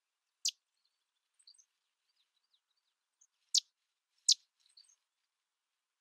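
Sedge wren calling: three short, sharp, dry call notes, one about half a second in and two close together past the middle, with faint high chirps between them.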